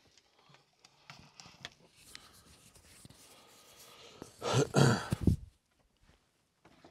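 Soft rustling and small handling knocks as the camera is moved and set down, then a loud breathy exhale, like a sigh, lasting about a second, about four and a half seconds in.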